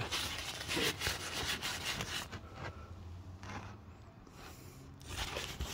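Rubbing and scraping handling noises, busiest in the first two seconds, then fading to a faint hiss before a few light knocks near the end.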